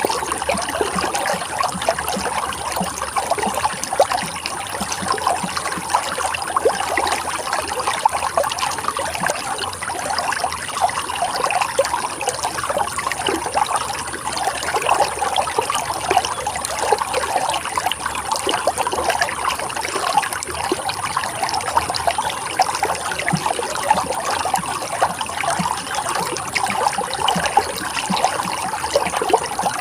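Running water trickling and splashing steadily over rocks, a continuous babble of many small splashes with no let-up.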